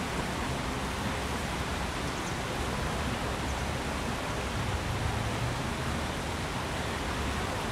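Steady rush of a small river tumbling over rocky cascades, with a faint low hum underneath.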